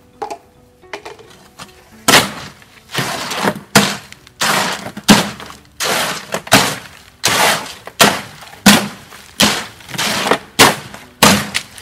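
A hoe scraping and chopping through a stiff, dry concrete mix in a wheelbarrow, in repeated strokes about three every two seconds, starting about two seconds in. The mixer is working added cement into an already low-slump batch, making it stiffer still.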